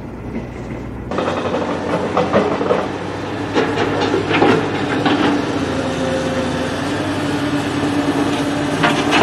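Engine-driven water pump running steadily, with scattered knocks and rattles; the sound starts abruptly about a second in.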